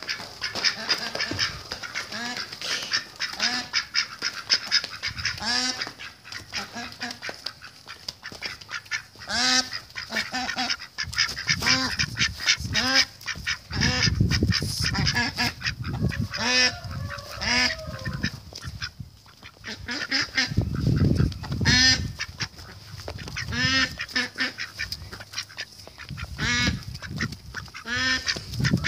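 Domestic duck quacking over and over, short pitched calls every second or two. A steady high whine runs underneath, and a few bursts of low rumble come and go.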